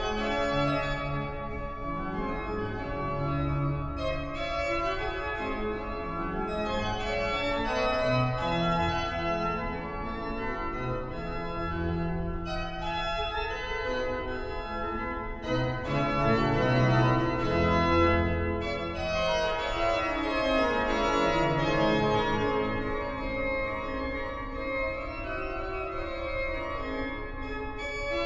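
The Great Silbermann pipe organ of 1714 playing continuously, with several parts sounding at once over a bass line whose notes change every second or two.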